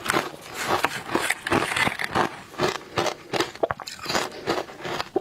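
A person biting and chewing powdery frozen matcha ice: a steady run of crisp crunches, about two or three a second.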